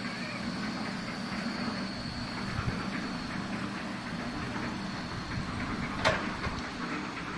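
Concrete mixer running, its drum turning with a steady rumble and clatter. A single sharp knock about six seconds in.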